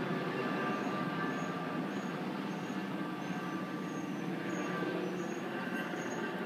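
Low-flying aircraft passing overhead: a steady engine drone, several held tones over a broad rumble, slowly fading. A faint high chirp repeats about twice a second.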